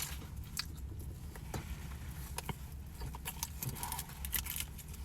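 Close-up chewing of battered deep-fried pickles, a string of small crisp crunches and mouth clicks over a low steady hum.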